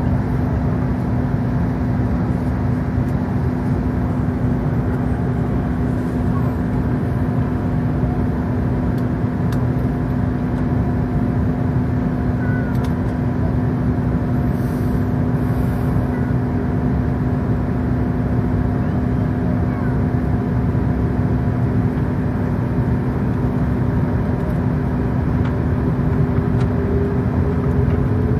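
Airbus A380 cabin noise while taxiing: the Rolls-Royce Trent 900 engines at low power give a steady hum with a few fixed whining tones over a broad rumble. Near the end one tone slowly rises in pitch.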